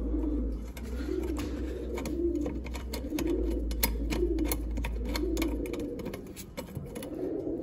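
A pigeon cooing in a steady series, about one coo a second, pausing near the end. Small sharp clicks come from fingers working the mounting screw of a tractor's rear work lamp.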